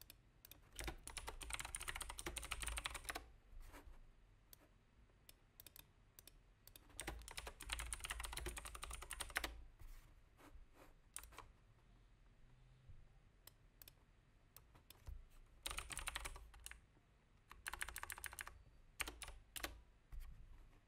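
Typing on a computer keyboard in four short bursts of rapid key clicks, with scattered single clicks between them.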